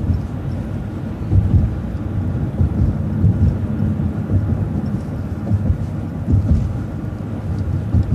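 Low, uneven rumble of a city transit bus in motion: engine and road noise heard from on board.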